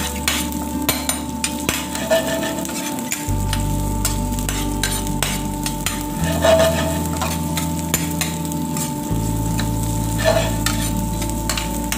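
Garlic, onion and lemongrass sizzling in hot oil in a stainless steel frying pan, with a metal spatula repeatedly scraping and tapping the pan as they are stirred. A steady low hum runs underneath.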